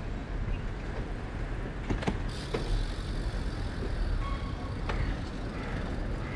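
Ride noise from a bicycle: a steady low rumble of wind and road on the microphone, with a few sharp rattles about two seconds in and another near the end.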